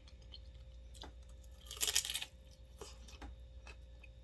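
Fried wonton chip crunching in the mouth: one short crisp crunch about two seconds in, with faint clicks of chewing around it.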